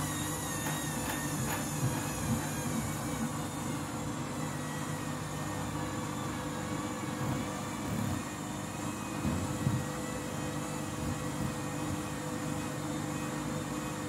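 Candy front-loading washing machine tumbling laundry in water during a rinse: the drum motor hums steadily while the wet load sloshes, with a couple of louder swishes about two-thirds of the way through.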